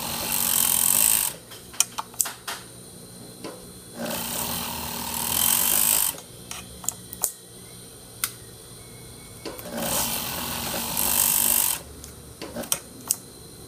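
Lanmax overlock sewing machine running in three bursts of about two seconds each, stopping between them, with several sharp clicks in the pauses.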